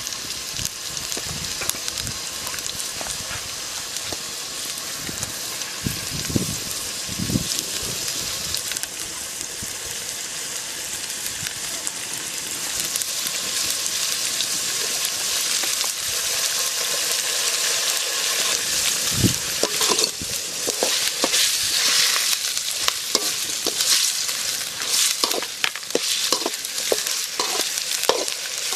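Goat liver sizzling as it fries in a large metal wok, stirred with a perforated metal skimmer that scrapes and clicks against the pan. The sizzle grows louder about halfway through, and the scraping strokes come thick and fast in the second half.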